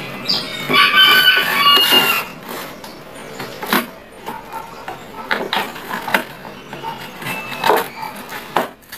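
Parcel packaging being handled and torn open: scattered crinkles and sharp clicks. A pitched call lasting about two seconds sounds near the start.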